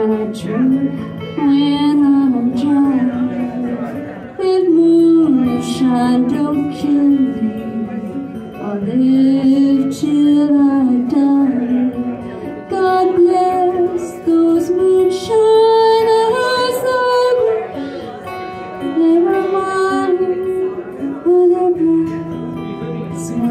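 A woman singing a song with long held notes, accompanying herself on acoustic guitar.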